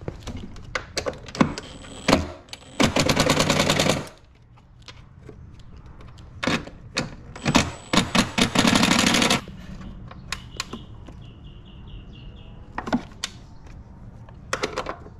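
Cordless impact driver hammering a battery terminal bolt tight: two sustained bursts of rapid rattling, each lasting about a second, preceded by short trigger blips. A few short clicks follow near the end.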